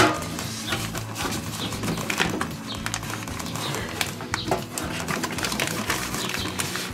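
Plastic vacuum bags crinkling and rustling as they are pushed into a stainless-steel sous vide tank and rib rack, with irregular small clicks and scrapes against the metal, over a steady low hum.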